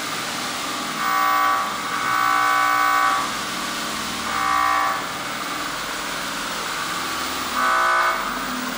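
Solar-powered square-wave synthesizer sounding in four bursts of a buzzy, horn-like steady tone, the second about a second long and the others shorter, over a steady hiss.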